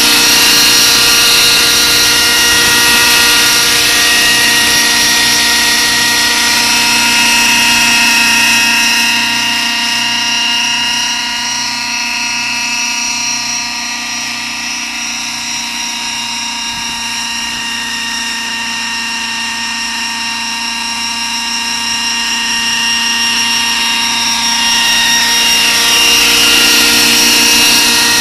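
Radio-controlled Schweizer 300 scale model helicopter flying, its motor and rotors making a steady whine at an even pitch. The whine fades as the helicopter flies off into the distance around the middle and grows louder again as it comes back near the end.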